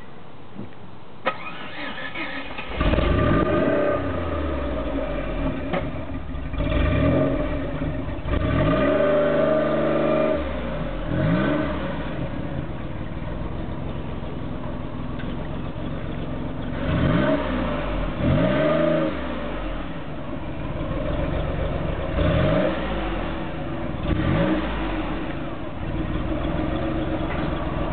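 Maserati Ghibli twin-turbo V6 starting: a click, a short crank, and the engine catches about three seconds in with a loud flare. It then idles and is revved freely about eight times, each rev rising and falling quickly in pitch.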